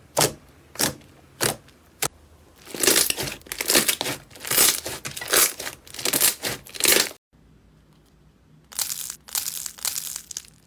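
Slime being pressed and squeezed by hand. It starts with a few sharp pops about every half second, then turns to bursts of loud crackling, with a short break about seven seconds in.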